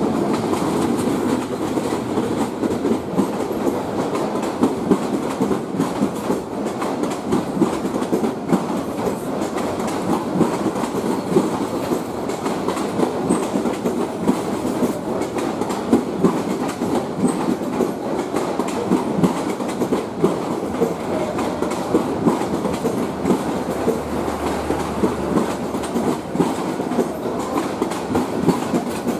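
A diesel-hauled passenger commuter train running past close by. The coaches rumble steadily, with the wheels clacking over the rail joints.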